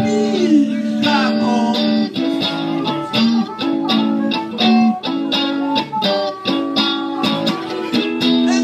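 Live blues played on electric guitar, with a harmonica playing held and bent notes over it.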